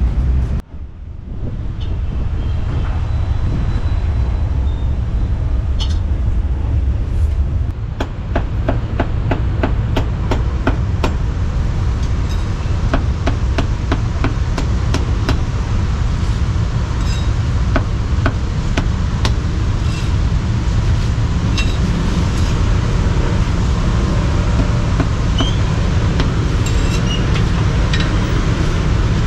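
A steel cleaver chopping roast meat on a wooden chopping block: a run of sharp repeated knocks that starts several seconds in and thins out toward the end, over a steady low street-traffic rumble.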